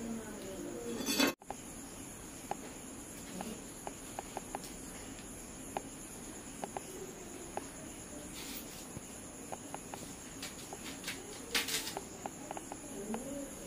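Insects trilling steadily at two high pitches, with small light clicks and taps of a blade peeling and cutting shallots. About a second in, a short rustling burst cuts off sharply.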